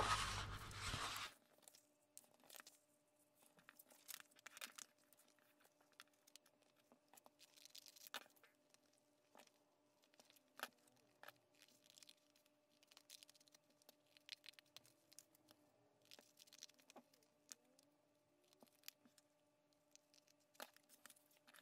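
Paper rustling loudly as a sheet is slid and handled for about the first second, then faint, scattered snips of scissors cutting paper along a star template's outline. A faint steady hum lies underneath.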